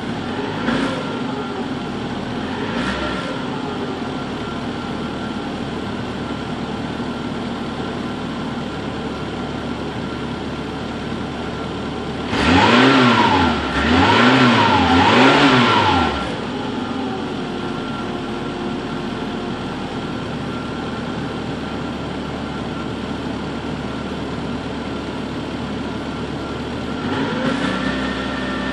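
Peugeot 106 Rallye's 1.6-litre 8-valve engine on its stock exhaust, idling, with two short throttle blips at the start. Midway it is revved three times in quick succession, each rev rising and falling; near the end the revs rise a little and hold.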